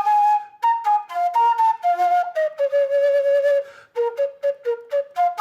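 Solo flute playing a melody: quick short notes, then one long held note in the middle, a brief break, and quick notes again.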